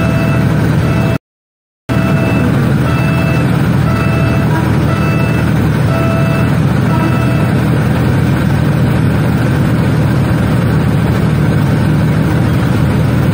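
Railroad crossing warning signal giving repeated short beeps, which stop about seven seconds in, over the steady low rumble of idling engines in the queue of traffic. The sound cuts out completely for under a second just after the start.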